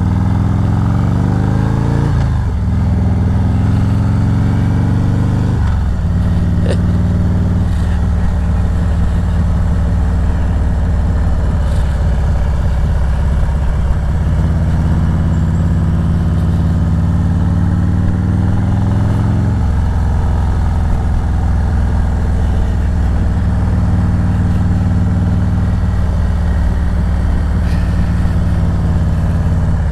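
Harley-Davidson Road Glide Special's V-twin engine pulling hard, its pitch climbing and dropping back twice with upshifts in the first six seconds, then running fairly steadily, with another change in pitch about two-thirds of the way through.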